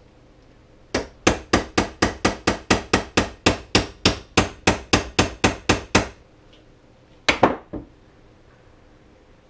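Hammer tapping a new roller pin into an Arctic Cat roller secondary clutch, about twenty quick, even metal knocks at roughly four a second. After a pause, three more quick knocks come near the end.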